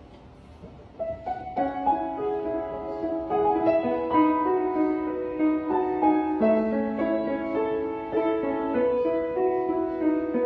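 Piano played with both hands: a melody over sustained chords that starts about a second in and carries on steadily.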